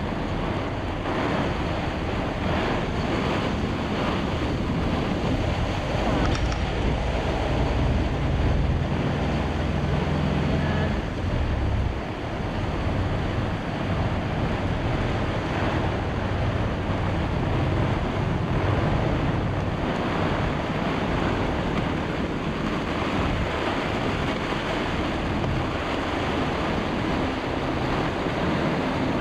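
Microburst storm wind and rain blowing across a sailboat's cockpit, buffeting the microphone with a steady, heavy rushing noise, gustier for a few seconds partway through.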